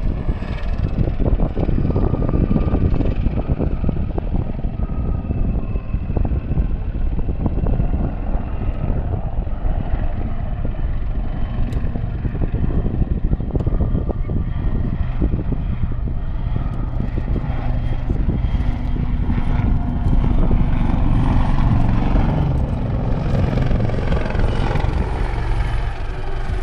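Royal Navy AgustaWestland AW159 Wildcat helicopter flying a display: a steady rapid chop from the main rotor. In the second half the pitch of its engine and rotor sound sweeps up and down as it manoeuvres.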